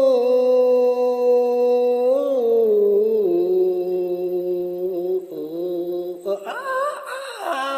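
A singer holding long wordless notes, each several seconds long, stepping down in pitch, then a shorter wavering phrase that rises again near the end.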